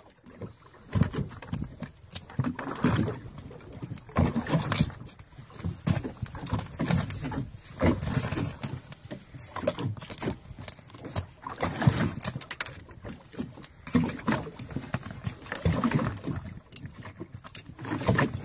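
Irregular clicks, knocks and scraping as barnacles are picked and pried off a small sea turtle's shell by hand.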